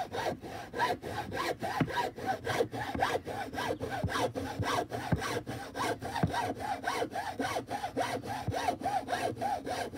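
Hacksaw cutting through a wooden board by hand, in quick, even back-and-forth strokes as the cut nears its end.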